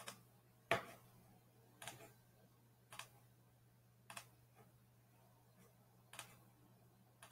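Computer mouse clicking: single sharp clicks about a second apart, with a longer pause shortly before the end, over a faint steady low hum.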